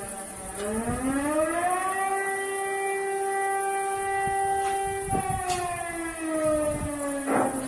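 Civil defense warning siren winding up to a steady pitch over about two seconds, holding it for about three seconds, then winding slowly back down.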